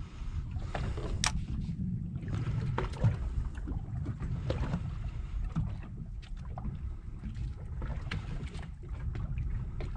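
Water lapping and slapping against the hull of a small boat at sea, with a steady low rumble and scattered small splashes and knocks.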